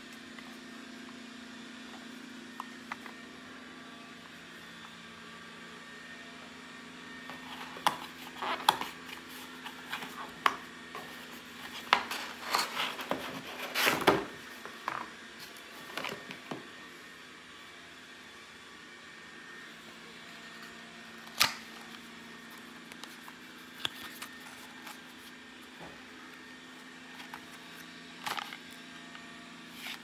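Cardboard and paperboard packaging handled during an unboxing: scattered taps, scrapes and rustles, busiest between about 8 and 17 seconds in, over a steady low hum.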